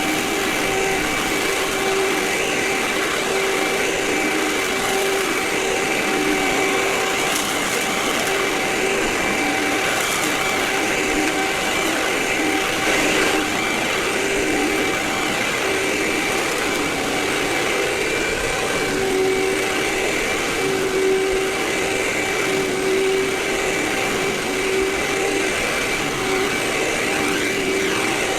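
Vacuum cleaner running steadily with a constant whine, in a recording sped up four times.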